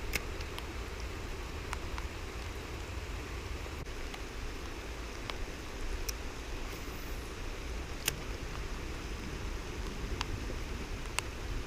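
Heavy rain falling steadily, with scattered sharp ticks of drops striking close by.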